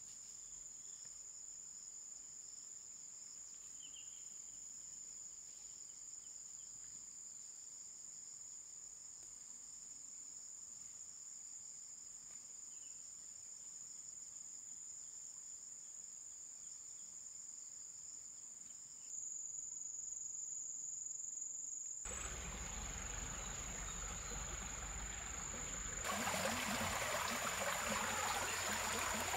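Insects, crickets or similar, calling in a steady, continuous high-pitched chorus. In the last several seconds a steady rushing noise comes in and grows louder in two steps.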